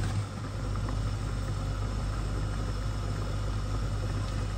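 Steady low mechanical hum with an even hiss, unchanging throughout, as from a running kitchen appliance.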